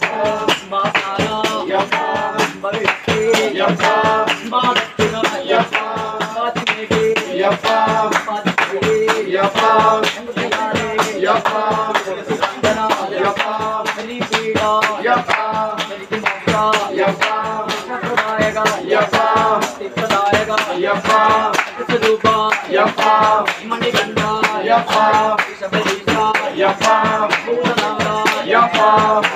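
Devotional song, a voice singing over a steady percussion beat with a shaker-like rattle, played or sung during the Sabarimala kettunira rite.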